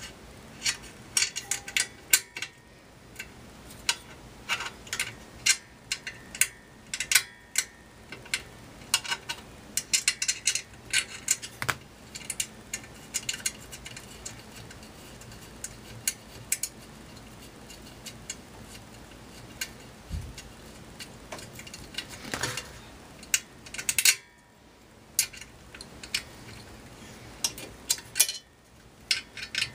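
Irregular small metallic clicks and scrapes of a screw and tool against the stainless-steel bracket and housing of a commercial ice shaver as the screw is fitted by hand.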